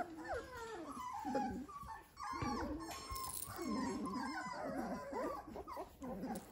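A litter of 23-day-old Dalmatian puppies whimpering and squeaking, several high, wavering cries overlapping, with a brief lull about two seconds in.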